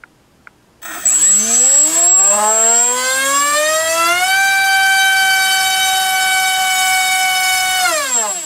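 MultiStar V-Spec 2205 2350 kV brushless racing-drone motor spinning a 6x3 propeller on a 4-cell battery: it spools up about a second in, its pitch rising steadily for about three seconds. It then holds steady at top speed, pushing over a kilogram of thrust, before winding down near the end.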